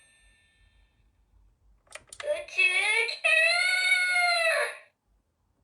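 Kamen Rider Nadeshiko DX driver toy playing one of its recorded voice lines through its small speaker. A click about two seconds in as the side knob is twisted, then a high-pitched female voice for about two and a half seconds.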